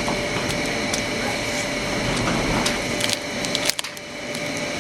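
Toy blind-box packaging being torn and crinkled open by hand: a busy run of small crackles and rips, with a brief lull near the end.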